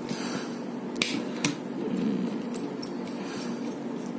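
Light handling noise of wires being fitted to a plastic modular switch terminal: two sharp clicks about a second in and half a second apart, then a few faint ticks.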